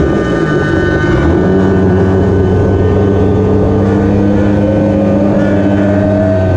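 Small two-stroke Goped scooter engine running under way, loud and close. Its pitch dips about a second in, then climbs steadily through the second half as the scooter speeds up.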